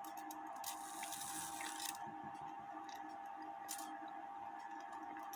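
Faint handling of a small clock mechanism: scattered light clicks, with a brief scraping rustle about a second in, over a steady faint hum.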